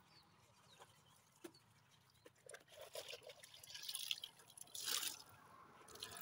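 Water dripping and splashing as a wet rag is wrung out by hand over a bucket. It is faint at first, with a few louder splashes in the second half.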